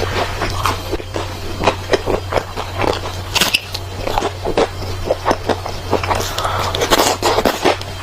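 Close-miked bites and chews of crunchy, crispy food, a quick irregular run of crunches over a steady low hum.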